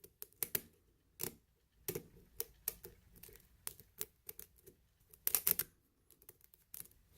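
Faint, irregular clicks and taps of a lock pick and tension wrench working the pins inside a pin-tumbler lock, with a quick run of clicks about five seconds in.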